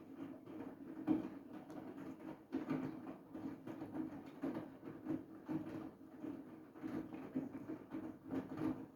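Siemens iQ700 front-loading washing machine running a wash: the drum turns with a steady motor hum while the wet laundry and water slosh and drop in irregular pulses about twice a second.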